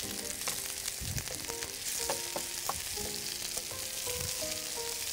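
Beef burger patties and onion slices sizzling in hot oil in a frying pan, turned with a wooden spatula that taps and scrapes on the pan. Soft background music plays underneath.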